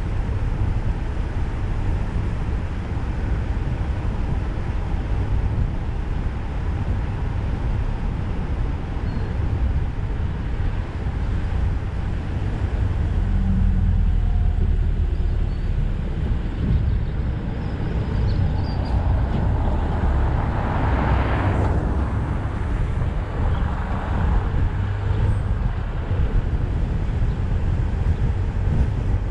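Car driving along a country lane: a steady low rumble of engine and tyres on the road, with a louder rushing swell about two-thirds of the way through.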